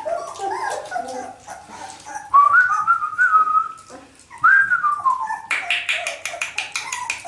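Young puppies whining: a drawn-out high whine, then a shorter one falling in pitch, followed near the end by a quick run of sharp clicks.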